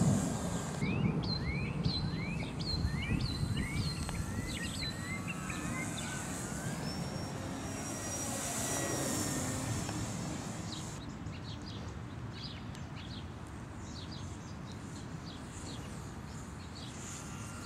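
ParkZone Corsair RC plane's electric motor and propeller passing, a thin high whine that swells and fades about halfway through, over a steady low outdoor rumble. A bird chirps repeatedly in the first few seconds.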